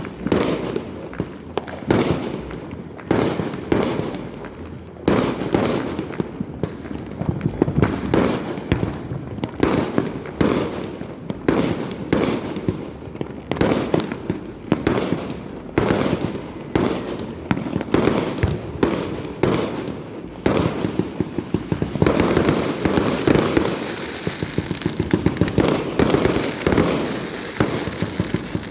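Fireworks going off in a rapid barrage: many sharp bangs, one after another, each with a fading echoing tail. From about two-thirds of the way in they thicken into a dense, continuous crackle of overlapping reports.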